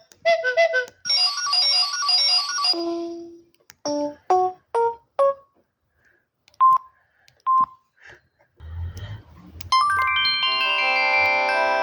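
A Samsung SGH-E300 mobile phone's speaker plays a series of short electronic alert tones: a quick jingle of chiming notes, a handful of short notes, then two single beeps. A brief low rumble follows, then a polyphonic ringtone melody starts near the end.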